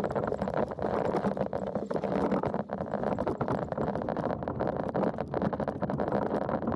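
Steady engine and road noise inside a moving vehicle, with continual clicking and rattling through it.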